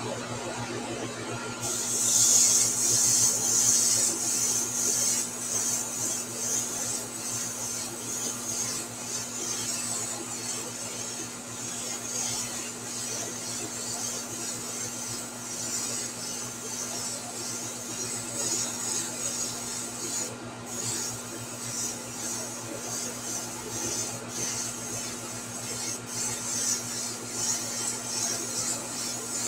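Airbrush spraying paint: a high hiss of air that starts about two seconds in, loudest at first, then keeps going with rapid rises and dips and a short break about twenty seconds in. A steady low hum runs underneath.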